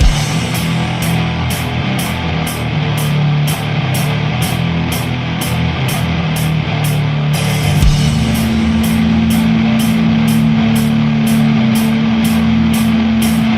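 Sludge metal: heavily distorted, downtuned guitars and bass over drums, with steady cymbal strokes keeping time. About two-thirds of the way through, a long low note is held.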